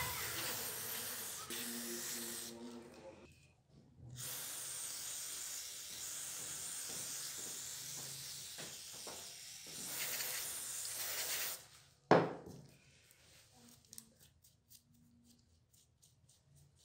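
Aerosol spray can with an extension straw hissing in two long sprays, with a short break about three seconds in. The spray stops about twelve seconds in, followed by a single sharp knock, the loudest sound, and then faint small ticks of scrubbing.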